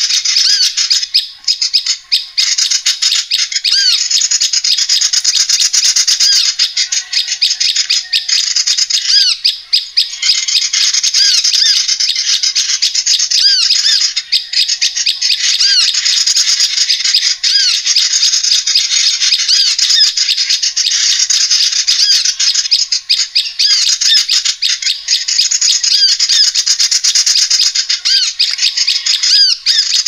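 Lure recording of small birds calling, played to draw small birds down for trapping: a dense, unbroken chatter of rapid, high, squeaky chirps that keeps on without pause.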